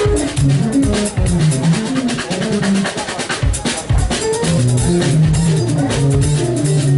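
Live jazz from a drum kit and a keytar: kick drum, snare and rimshot hits under a moving low keyboard line and chords.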